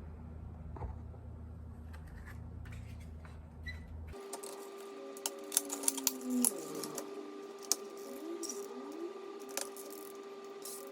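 Scattered light clicks and rattles of small plastic and metal parts being handled as an instrument cluster is put back together. About four seconds in, the background changes abruptly and a steady hum with a few short sliding whirs sits under the clicks.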